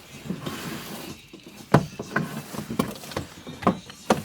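Several sharp knocks and clatters at irregular intervals, about five from a little under two seconds in, from objects being handled and moved about.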